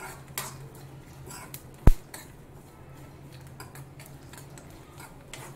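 Metal spatula stirring and scraping dry-roasting peanuts, roasted gram, garlic and curry leaves around a metal pan, with scattered scrapes and one sharp knock about two seconds in. A faint steady low hum runs underneath.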